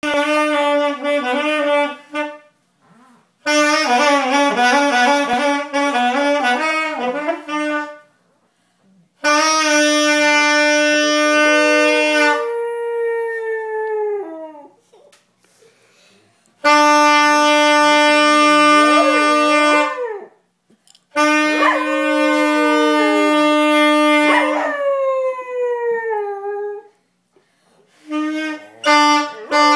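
A saxophone playing long held notes in phrases of a few seconds, with short pauses between them, while a dog howls along. The howls waver and slide downward in pitch, trailing on after the sax stops each phrase.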